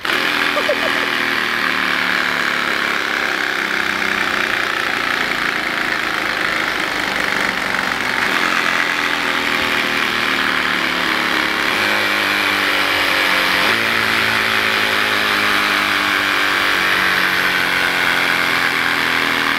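Motorcycle engine running steadily at idle, starting abruptly and holding an even level.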